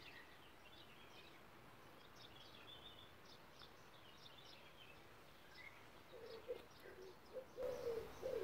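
Faint birdsong: small birds chirping, then from about six seconds in a dove cooing in short repeated low notes.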